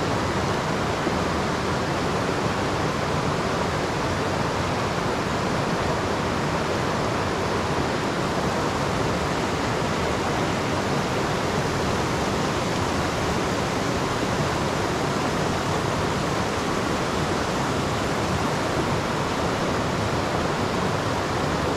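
Small rocky trout stream rushing over stones through a riffle: a steady, even rush of water.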